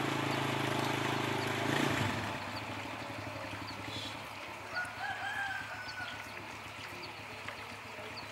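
Village ambience: a steady low hum for the first two seconds, then a distant rooster crowing briefly about five seconds in, over small regular high chirps.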